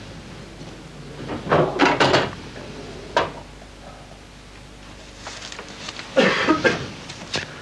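Pool balls knocking on the table: a cue tip striking the cue ball and balls clacking together and against the cushions. The sharp knocks come in a cluster about a second and a half in, once more at about three seconds, and in another cluster about six seconds in.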